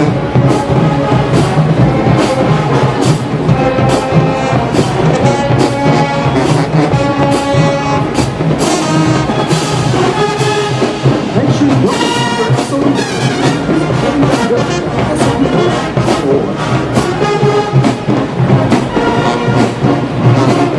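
HBCU show-style marching band playing: full brass (trumpets and trombones) over a steady drum beat.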